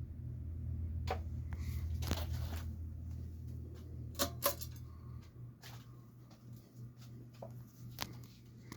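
Global Winds 52-inch ceiling fan motor humming, with several sharp clicks. The lowest part of the hum drops away about five seconds in, leaving a fainter hum.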